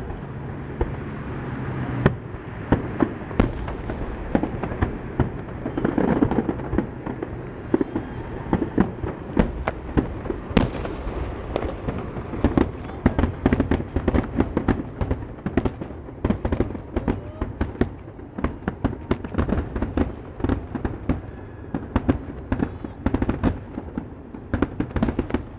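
Fireworks going off: a dense, irregular string of sharp bangs and pops, several a second, over a steady low background, with one especially sharp crack about ten seconds in.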